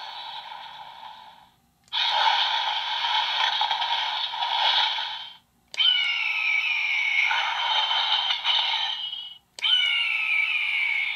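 Bandai DX EagRiser toy sword playing its electronic sound effects through a small built-in speaker, in bursts of a few seconds with short gaps between them. The last two bursts open with a click and a falling tone.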